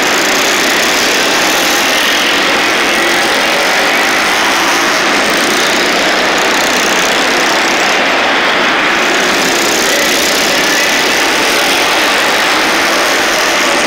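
A pack of racing minibikes' small engines running loud and continuously, several overlapping, their pitch wavering up and down as the bikes lap the track, echoing in an indoor arena.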